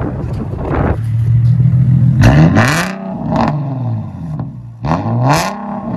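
Nissan 370Z's 3.7-litre V6 heard at its aftermarket exhaust tips, mufflers deleted: idling, then revved twice, about two and a half seconds apart, each rev climbing to a loud rasp and falling back to idle.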